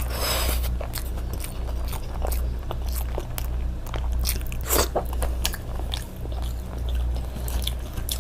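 Close-miked chewing and wet mouth sounds of a person eating chicken curry, with many small sharp clicks and smacks, over a steady low hum.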